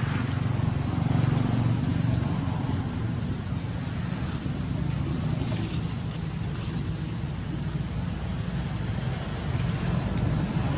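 Steady low rumble of a running motor, with faint ticks over it.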